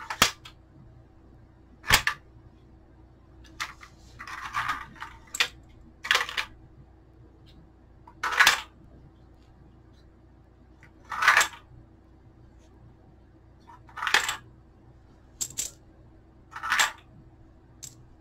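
Brass rifle cartridges dropped one at a time into a 3D-printed plastic AR-15 speed loader, each landing with a short, sharp metallic clack, about every two to three seconds.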